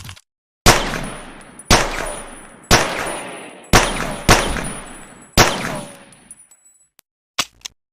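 Pocket pistol fired six times, mostly about a second apart, each shot with a long echoing tail; a few short mechanical clicks follow near the end.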